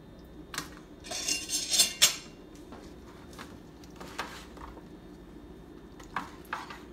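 Metal baking pans clinking and scraping as food is handled on them: a scraping rustle about a second in that ends in a sharp clink, then a few light scattered knocks, over a low steady hum.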